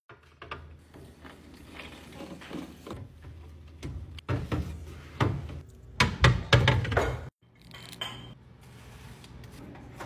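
Glass and clear plastic food-storage containers being set down and slid on refrigerator shelves: a run of clinks and knocks, busiest about four to seven seconds in.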